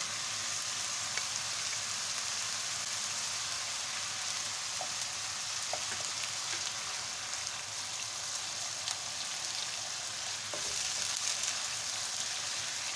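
Hot oil sizzling steadily in a nonstick wok as garlic-ginger paste fries with onion paste, stirred in with a wooden spoon. A few faint ticks sound over the hiss, which grows slightly louder near the end.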